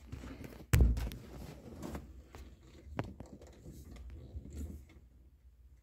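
Hands straining to twist a gear-lever extension onto a VW Kombi's gear shift lever: a sharp knock about a second in, then a few scattered clicks and rubs as the part is worked. It will not turn on the thread.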